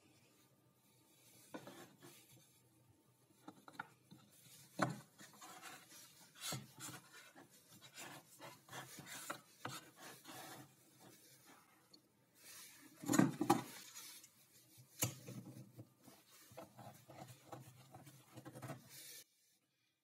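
Pieces of wood being handled on a wooden drill-press table: wood rubbing and scraping against wood, with scattered light knocks. The loudest is a cluster of knocks about two-thirds of the way through, and the sound stops abruptly shortly before the end.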